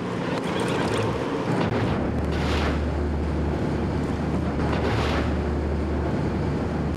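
Wind buffeting the microphone over a steady low rumble at sea, with two brief gusts of hiss.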